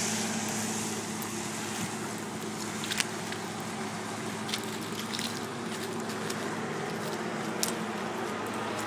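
Tractor's diesel engine running steadily with an even hum, with a few short sharp clicks over it.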